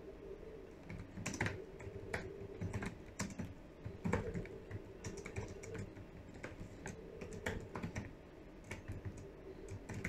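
Typing on a computer keyboard: irregular, quick key clicks with short pauses between words.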